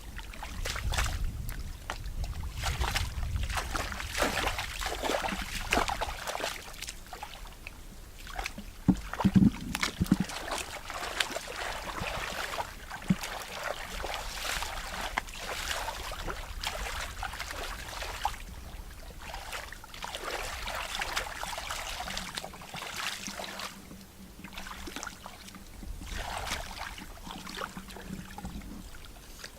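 Water splashing and sloshing in irregular bursts, from hand-fishing in shallow water. There is a short low thump about nine seconds in, and a faint steady hum near the end.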